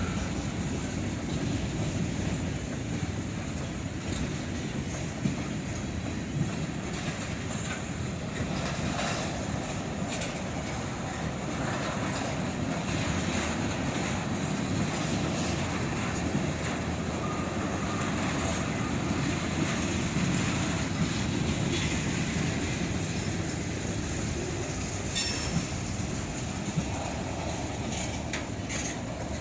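Freight cars of a long train rolling past: a steady rumble of steel wheels on rail with scattered clicks as the wheels cross rail joints.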